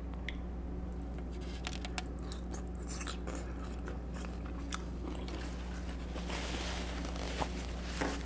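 A person biting and chewing food close to the microphone, with sharp wet mouth clicks throughout and a denser stretch of chewing noise between about six and seven seconds in. A low steady hum lies underneath.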